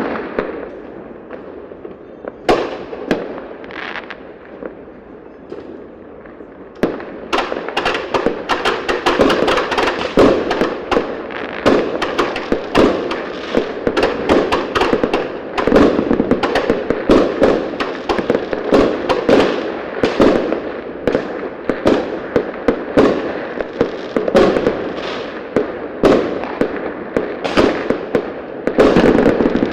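Fireworks going off: a few scattered bangs at first, then from about seven seconds in a dense, rapid string of bangs and crackles that keeps going.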